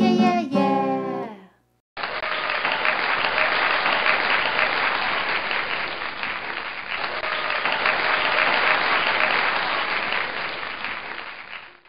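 Crowd applause, a dense clapping that starts after a short pause, runs about ten seconds and fades out near the end.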